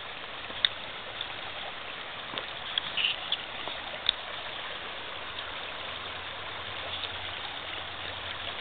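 Shallow rocky stream flowing over stones, a steady rush of water, with a few short sharp clicks in the first half.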